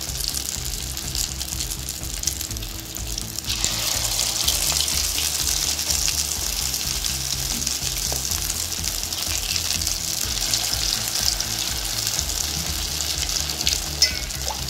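Balls of rice-and-lentil batter deep-frying in hot groundnut oil in a kadai: a steady sizzle with fine crackling that grows louder about three and a half seconds in.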